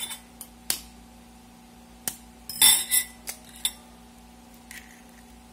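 Eggs being cracked against the rim of a bowl: a scattering of sharp taps and clicks of shell on the bowl's edge, with the loudest cluster of knocks about two and a half seconds in.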